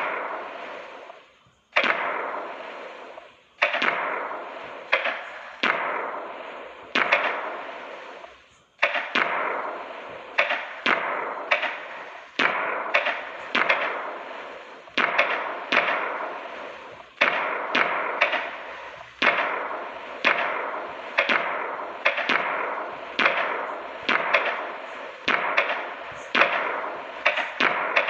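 Firework and firecracker bangs, each a sharp crack followed by a short fading crackle. At first they come every second or two, then from about nine seconds in they come faster, roughly one or two a second.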